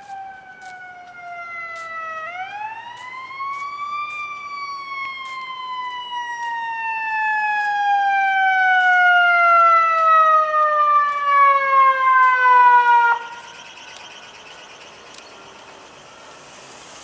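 Fire engine siren wailing. Its pitch climbs quickly about two seconds in, then falls slowly and steadily while growing louder, and it cuts off sharply near the end. Fainter traffic noise follows.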